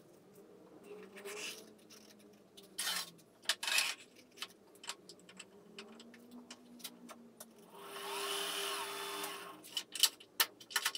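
Clicks, knocks and rubbing as a wooden vase is handled and clamped between the metal chuck and tailstock of a woodturning lathe that is not running, with a longer scraping rush about eight seconds in and a few sharp clicks near the end.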